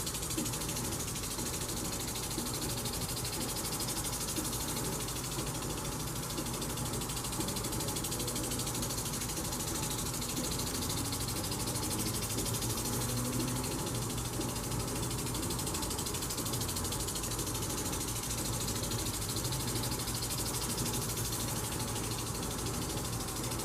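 Water spraying at a bird bath, an even, unbroken hiss.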